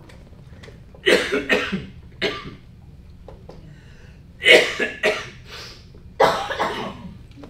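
A man coughing in several short bouts to clear a dry throat.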